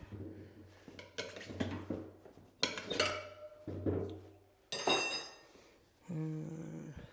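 Metal tools clinking and knocking against a motorcycle wheel rim during a tire change: a series of sharp clanks and clinks, roughly a second apart.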